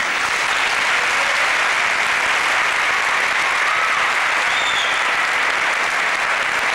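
A large crowd applauding, starting suddenly and holding steady.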